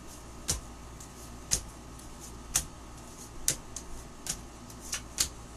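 Playing cards dealt one at a time onto a tabletop, each landing with a short sharp snap, roughly once a second.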